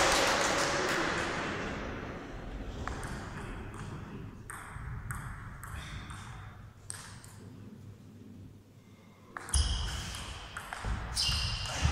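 Table tennis ball ticking sharply off rackets and the table in a large hall. The clicks come singly and irregularly at first, then faster in a rally near the end.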